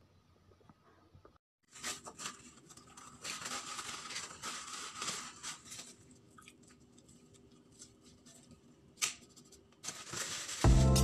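Irregular rustling and crackling as raw chicken breast is handled into a glass bowl, with a sharp tap about nine seconds in. Music comes in near the end.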